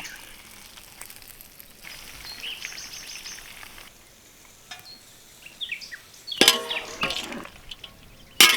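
Food sizzling in hot oil, loudest in two spells from about six and a half seconds in and again near the end, with faint bird chirps earlier on.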